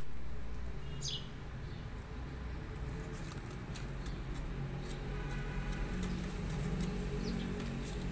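Outdoor ambience: a low steady hum with two short, falling bird chirps, one about a second in and one near the end.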